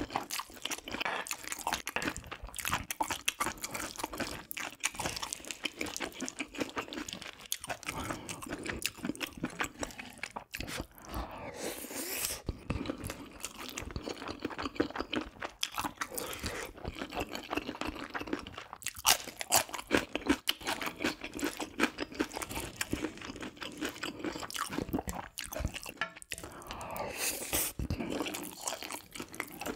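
A person chewing mouthfuls of spicy fried rice, crunching steadily and irregularly.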